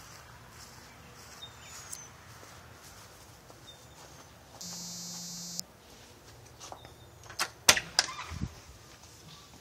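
A front door being opened: sharp clicks and knocks of the storm door and front door latch and handle, the loudest sounds, come in a quick cluster near the end, with a dull low bump just after. About halfway through, a single steady electronic beep lasts about a second.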